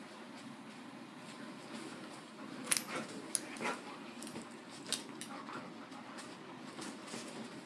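Two dogs play-fighting: scuffling, with a few sharp clicks and short dog vocal sounds, busiest around three to five seconds in.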